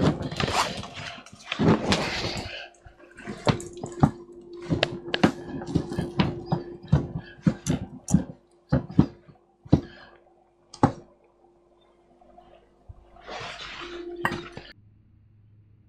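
Irregular sharp clicks and taps of small objects being handled, over a faint steady tone. There is a short rush of noise near the end, then the sound cuts off to a low hum.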